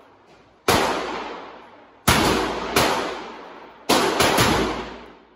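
Six semi-automatic shots from an AK-pattern rifle on an indoor range, each trailing a long echo: a single shot, then two about half a second apart, then three quick ones near the end.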